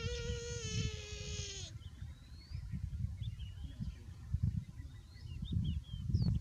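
Buffalo calf giving one long, high bleat that sags slightly in pitch and stops under two seconds in, followed by faint bird chirps over a low rumble.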